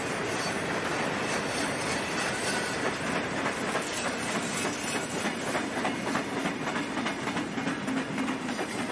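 Freight train's boxcars and covered hoppers rolling past, a steady rattle and rumble of steel wheels on the rail with faint repeated clicking over the rail joints.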